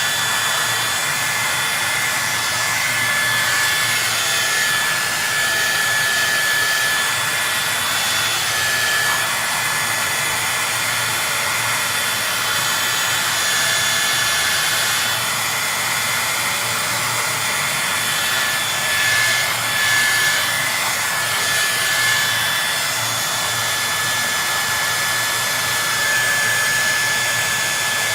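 Heat gun blowing steadily, a loud even hiss with a faint steady whine, aimed at a PlayStation 3 motherboard's processors to reflow their solder.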